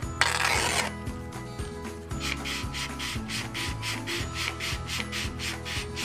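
A sheet of sandpaper torn by hand, a short loud rip just after the start. Then sandpaper rubbed back and forth on a wooden stick in quick, even strokes, about four a second.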